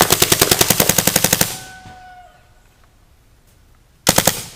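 Tacamo Blizzard paintball marker firing on full auto: a rapid burst of shots, roughly a dozen a second, that stops about a second and a half in. A short burst of a few shots follows near the end.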